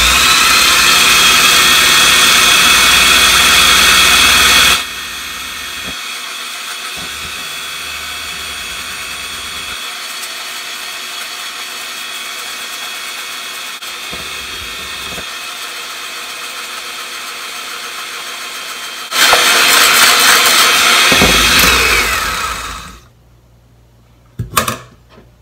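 Electric hand mixer running steadily as its beaters whip egg white into foam in a stainless steel bowl. It runs loud for about five seconds, drops to a quieter, steady run for about fourteen seconds, runs loud again, then winds down and stops a couple of seconds before the end.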